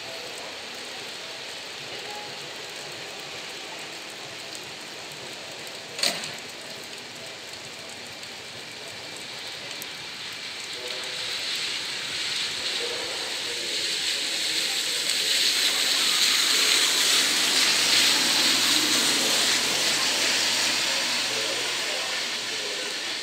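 Steady hiss of rain, a sharp click about six seconds in, then an electric train running on the track, its wheel and motor rumble swelling through the middle and fading near the end.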